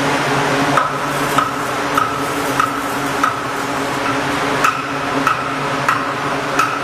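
Hammer striking steel in a steady, regular beat, about one blow every 0.6 seconds, each blow with a short metallic ring. A steady machine hum and hiss run underneath.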